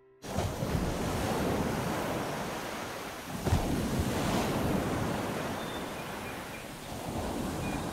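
Waves washing up onto a sandy beach: a steady surf hiss that starts abruptly just after the beginning and swells once near the middle.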